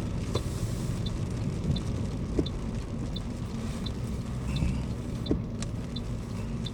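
Steady car engine and road rumble heard from inside the cabin, with a faint regular tick about every 0.7 seconds.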